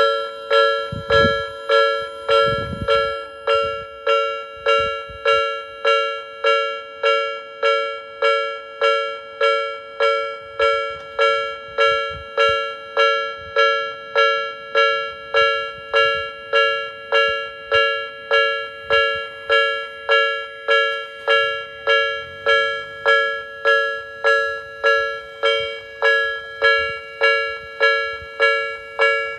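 Japanese railway level-crossing warning bell ringing steadily, about three clangs every two seconds, each clang dying away before the next.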